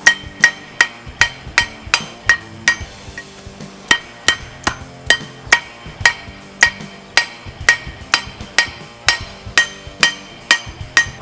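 Hammer strikes on an anvil forging hot steel, a pruning-shear blade being drawn into a seax. The blows land at about two to three a second, each with a bright metallic ring, pausing briefly about three seconds in.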